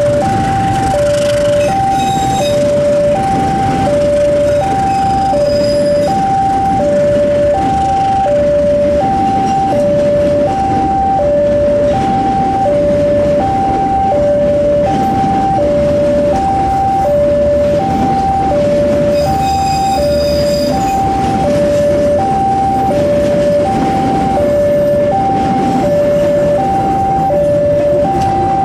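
Railway level-crossing warning alarm sounding a steady two-tone high-low pattern, about one high-low cycle a second, over the rumble and clatter of train coaches rolling past on the rails.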